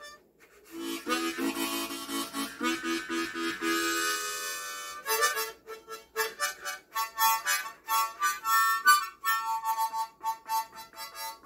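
Small harmonica played by a novice: unpolished chords of several reeds at once, a longer held and shifting chord about 1 to 4 seconds in, then short choppy puffs of notes. The player himself calls it an annoying noise.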